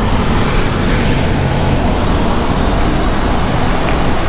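Gelato vending machine's vacuum suction unit running, a steady loud rushing noise, while its suction hose is lowered toward the cups.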